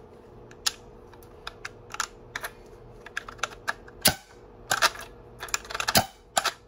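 Plastic clicks and clacks from a 3D-printed trigger, gear and breech-ram mechanism being worked on an HPA foam-dart blaster. The loudest, sharpest burst comes about four seconds in and fits the air core firing at the end of the trigger pull.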